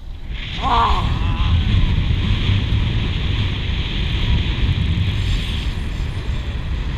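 Wind buffeting the microphone in a steady rumbling rush that grows louder about half a second in, with a short, high, wavering cry about a second in.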